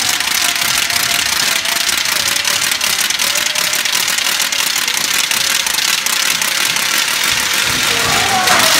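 Purim graggers, wooden ratchet noisemakers, whirled hard: a loud, continuous rattling clatter made of rapid clicks. Voices rise under it near the end.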